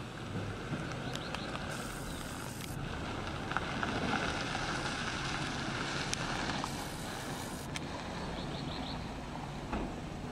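Street ambience: the steady hum of city traffic, with a couple of brief swells of hiss.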